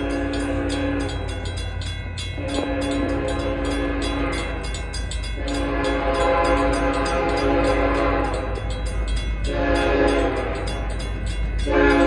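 Approaching locomotive's multi-chime air horn sounding a series of long blasts with brief gaps, the third one shorter, the standard warning for a grade crossing ahead. Under it a railroad crossing bell rings steadily, about four strokes a second, over a low rumble.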